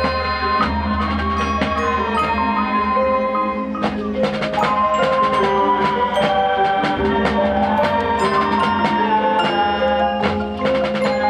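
Marching band music led by the front-ensemble mallet percussion: marimba, xylophone and glockenspiel playing rapid struck notes over sustained low chords, with a melody line rising and falling twice.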